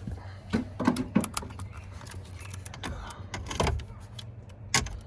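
Irregular clicks and clinks of hand tools and loose bolts against the metal and plastic parts of a truck dashboard being taken apart, about six sharp knocks spread unevenly.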